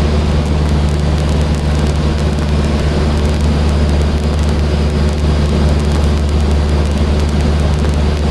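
Cessna 152's four-cylinder Lycoming engine and propeller running steadily in flight, a constant drone heard inside the small cabin.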